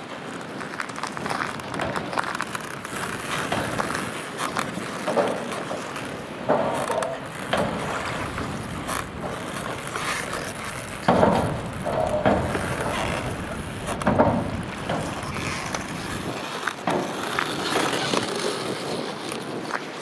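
Irregular crunching footsteps on a shell-and-sand shore, with wind on the microphone, louder about halfway through.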